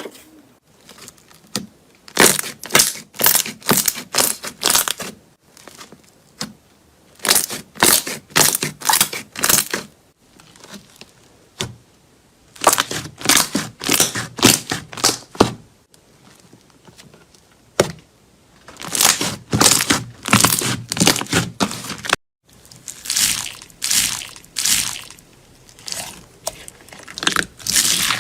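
Slime being squeezed and pressed by hand, giving clusters of sharp crackling pops a few seconds long, with short pauses between the squeezes.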